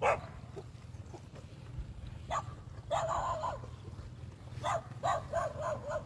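Short, pitched animal calls: one at the start, a longer one about three seconds in, and a quick run of four or five near the end.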